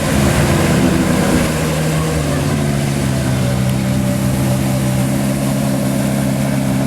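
A supercar's engine running at low revs in a tunnel, louder and unsettled for the first second or so, then holding a steady low note.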